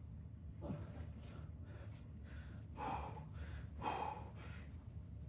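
A man breathing hard from exercise, with a series of deep breaths; the heaviest come about three and four seconds in.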